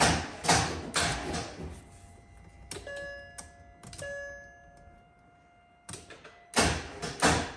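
Starter cranking the Mercedes M156 6.2 L V8 in quick, even pulses without it catching, the hard-start fault that is worse from cold. Cranking stops early on, two short chime tones sound about a second apart, then cranking starts again near the end.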